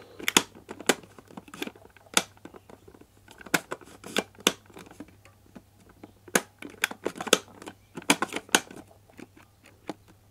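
Irregular sharp plastic clicks and knocks from a Kenwood food chopper's clear bowl and lid being handled, with its lid switch button pressed and the lid tried against the safety interlock. The motor is not running.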